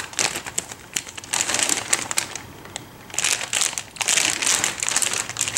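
Clear plastic bag crinkling and rustling as it is handled, with a MIG welding gun and its coiled cable inside. It comes in several bursts, with a short lull about halfway through.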